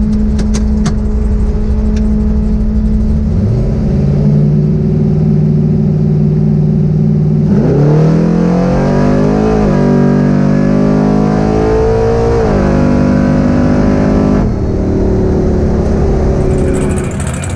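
Drag car's engine heard from inside the cabin: it idles, comes up in revs about three seconds in, then about seven seconds in pulls hard down the strip, rising in pitch with two gear changes before the driver lifts off near the end of the run.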